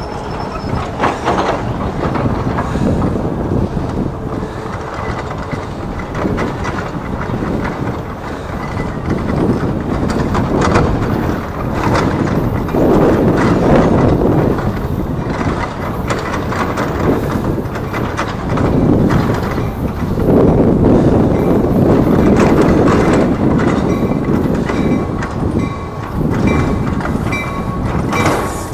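NJ Transit commuter train running on the track, a continuous rumble and rail clatter with louder swells, and a thin high squeal near the end as the approaching train draws up to the platform.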